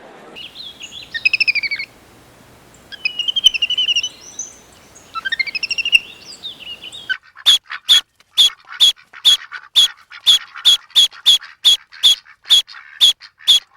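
Birds calling: three bouts of harsh, warbling calls. After an abrupt change about seven seconds in, a fast, even series of short, sharp chirps follows, about three a second.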